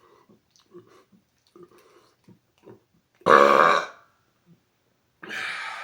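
A man's deliberately forced loud burp about three seconds in, lasting under a second, after a few faint gulps of Coke Zero. A decibel meter reads the burp at just over 120 dB. A shorter, quieter second burp follows near the end.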